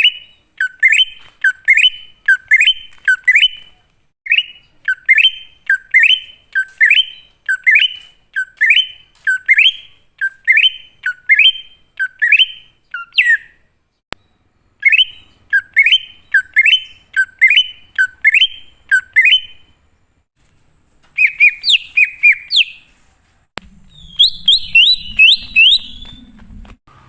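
Wild green leafbird (cucak ijo) calling: a long run of loud, sharp swooping whistled notes, about one and a half a second, in phrases with short pauses. Near the end it switches to a quicker, higher string of notes.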